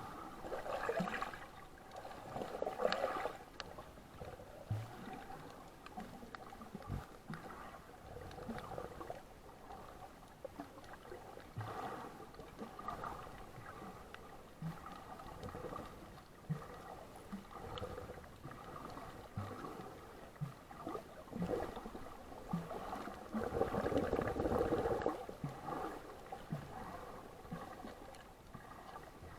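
Water sloshing and gurgling in uneven swells, loudest about a second in and again near the end, with small scattered knocks.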